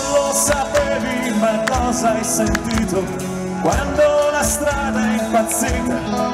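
Live rock band playing: electric guitar over a drum kit with cymbal crashes, and a man singing into a handheld microphone.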